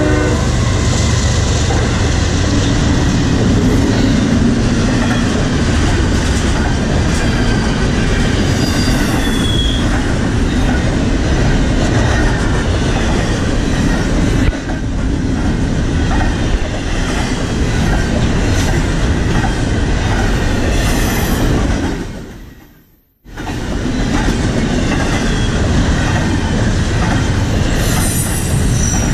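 CN freight train of double-stack container well cars rolling past at close range: a loud, steady rumble of steel wheels on rail with a few thin, high wheel squeals. The sound dips out for about a second near the three-quarter mark, then comes straight back.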